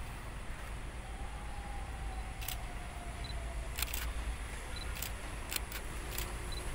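Camera shutters clicking about eight times at irregular intervals, starting a couple of seconds in, over a steady low rumble.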